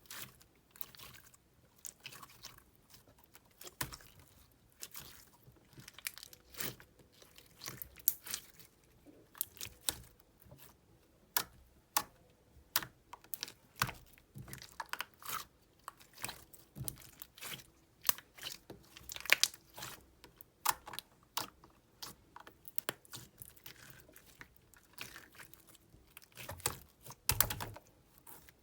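Clear slime being squeezed and pressed by hand, giving a steady run of irregular small sticky clicks and pops.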